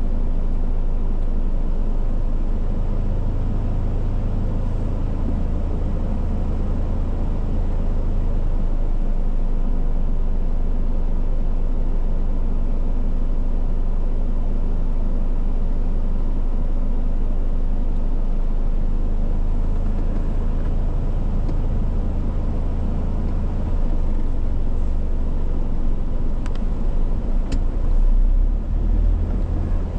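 Rainstorm: a loud, steady low rumble with a haze of noise over it, and a few sharp clicks near the end.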